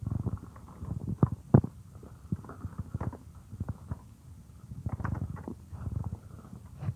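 A woman's stomach growling: irregular bursts of low gurgling and rumbling with sharp little pops, the loudest pop about a second and a half in.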